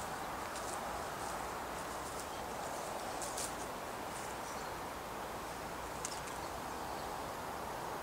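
Steady outdoor background hiss with scattered short, high chirps from small birds.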